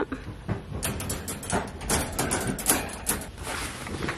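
Wire dog crate door swung shut and latched, with irregular metal clinks and rattles, and a blanket rustling as it is drawn over the crate.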